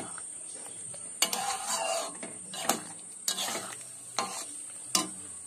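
Metal spatula stirring chicken pieces in thick gravy in a kadai, scraping through the food and clinking against the pan about five times.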